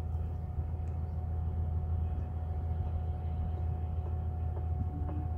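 Engine of a passing river boat running steadily: a continuous low drone with a thin, even whine above it.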